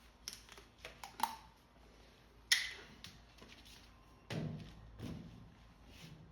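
Plastic motor-oil bottle being handled at the engine's oil filler while the fourth bottle is added: a few light clicks and knocks, one sharp click about two and a half seconds in, then two short low gurgling bursts as oil glugs out of the bottle.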